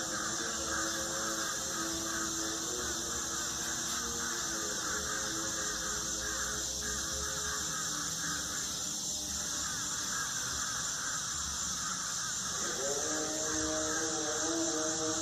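A long, trumpet-like droning tone with several overtones, of the kind reported as 'strange trumpet sounds in the sky'. It holds steady for seconds at a time, fades about nine seconds in, then glides up into a stronger held tone near the end, over a steady high hiss.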